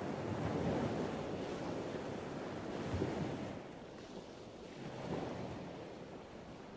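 Sea waves washing with wind, rising and falling in slow surges and fading toward the end.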